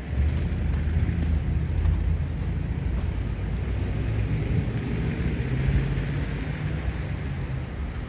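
A motor vehicle's engine running close by, with a hiss of tyres on the street, loudest through the middle and easing off near the end.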